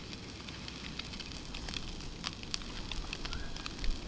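Butter and fish juices still sizzling in a hot frying pan on a portable gas stove: a steady hiss with scattered little crackling pops.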